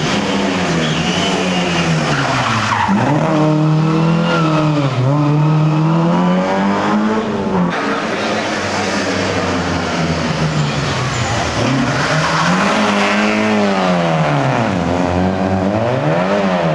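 Rally car engine revving hard, its pitch climbing and then dropping sharply several times, about every two to three seconds.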